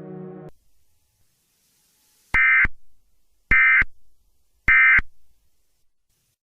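Three short bursts of Emergency Alert System SAME data tones, about a second apart, each as brief as the end-of-message (NNNN) code that closes an alert. A low droning music tone cuts off about half a second in.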